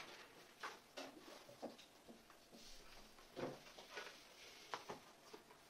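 Faint pencil strokes on paper: a series of short scratches with a couple of light taps.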